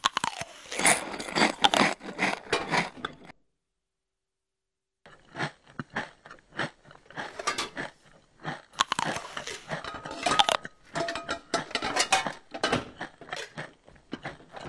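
Crunchy chewing and biting, a mouth munching with close, irregular crunches, stops about three seconds in. After a second and a half of silence, a long run of irregular clicks and crunches follows.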